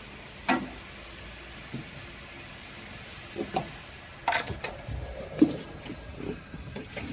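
Scattered clicks, knocks and rustling of things being handled, loudest around the middle, over a steady low hum; this is the preparation for filling the laser machine's water tank with purified water.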